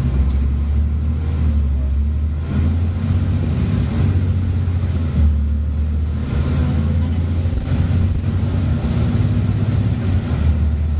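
Scania N94UB bus's five-cylinder diesel under kickdown, heard from inside the bus: the automatic gearbox has dropped a gear at full throttle and the engine pulls hard and loud as the bus accelerates. The note changes a few times along the way.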